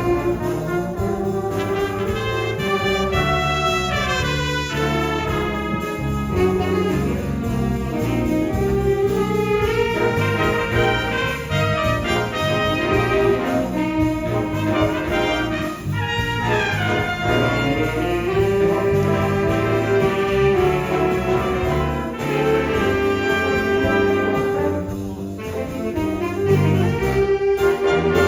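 High school jazz band playing a big-band chart, the brass section prominent over a steady rhythm section, with moving melodic lines and held ensemble notes.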